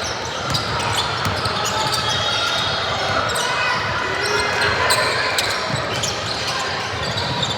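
Basketball bouncing repeatedly on a gym floor during play, with sharp scattered thuds over a steady background of crowd and player voices.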